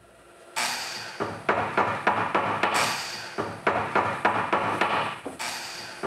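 Busy workshop noise: a rapid run of knocks and bangs over a low steady hum, starting about half a second in.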